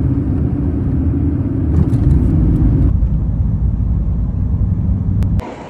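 Low, steady rumble of road and engine noise heard inside a moving car's cabin. It cuts off abruptly near the end, just after two faint clicks.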